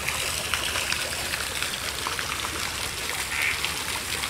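Garden fountain jets spraying water up and splashing down into the pool below: a steady splashing of falling water.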